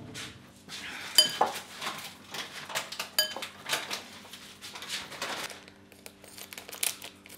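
A metal fork clinking and scraping against a glass bowl as steaming instant noodles are stirred and lifted, with a few sharp ringing clinks among many light taps that thin out near the end.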